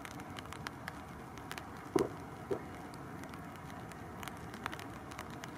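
Two short harsh calls from a flock of crows flying over, about two seconds in and half a second apart. Under them is a steady faint hum of a distant airliner's jet engines at low power, with scattered faint ticks.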